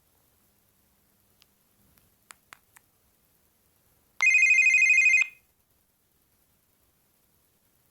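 Bird S296 mobile phone playing a ringtone preview: a high-pitched, fast-trilling electronic ring lasting about a second, starting about four seconds in. A few faint clicks come before it.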